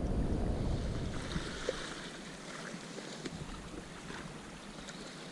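Wind on the microphone and water lapping around a kayak, easing off after about two seconds, with a few faint ticks.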